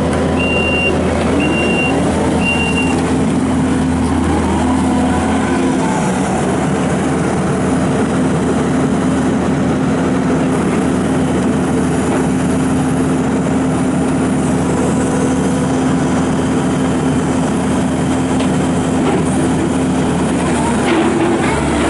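Kubota SVL75-2 rubber-track skid steer's diesel engine running steadily under operation, with its pitch shifting a little as the machine works. Near the start come three short high beeps from the backup alarm.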